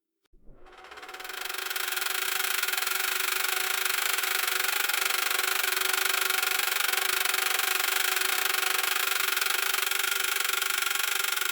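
Pallet wrapper spinning: its motor winds up over a second or so, then runs at a steady speed with a constant hum over a hiss.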